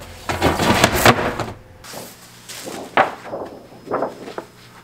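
A rattling clatter of books and papers dropping into a metal mesh wastebasket, then a few sharp slaps and rustles as a large sheet of paper is handled.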